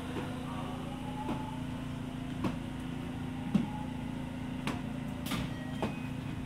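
Interior of a JR West 207 series electric commuter train: a steady low hum with occasional light clicks and knocks.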